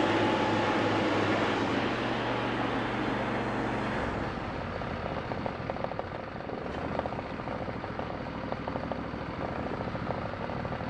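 Briggs & Stratton V-twin engine of an MTD riding lawn tractor running steadily, freshly valve-adjusted after it would not crank. About four seconds in it drops to a lower, quieter, slower run with an even beat of firing pulses.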